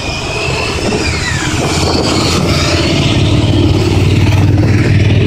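Several motorcycles riding past one after another at low speed, their engines running and growing louder as more bikes come through.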